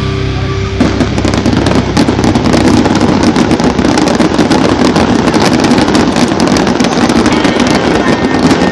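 Music cuts off just under a second in, giving way to aerial fireworks bursting overhead: a dense, continuous run of bangs and crackles.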